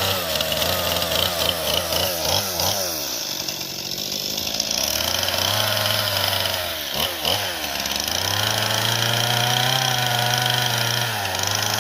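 Chainsaw engine revving up and dropping back again and again, falling briefly toward idle about seven seconds in, then held at a steady high speed before easing off near the end.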